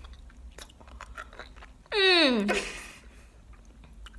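A person chewing a sticky sour candy, with faint wet mouth clicks. About two seconds in she makes one loud vocal sound that falls steeply from high to low and trails off into a breath.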